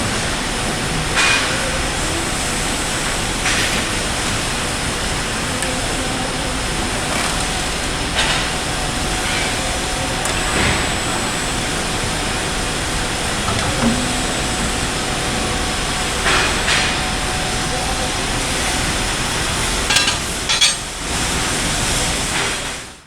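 Factory machinery in a steel-bar bending shop running, with a CNC bender at work: a steady hum and hiss with faint constant whines and an occasional metallic clank every few seconds, a cluster of clanks near the end.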